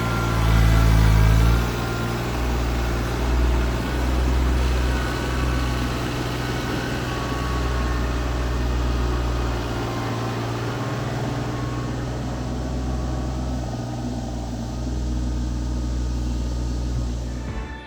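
TYM T25 compact tractor's diesel engine running steadily while the backhoe digs, louder for the first couple of seconds and then holding an even note.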